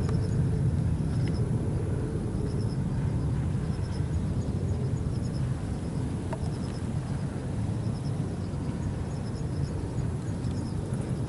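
Steady low outdoor rumble, with faint short high chirps recurring about once a second.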